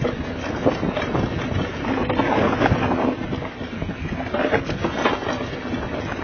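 Mountain bike descending a rough dirt and rock trail at speed: tyres crunching over loose dirt and stones, many quick knocks and rattles from the bike, and wind rushing over the microphone.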